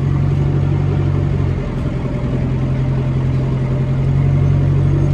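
Case tractor's diesel engine pulling a plough under heavy load through hard clay, with the diff lock on: a steady low drone that dips slightly just under two seconds in and builds again near the end.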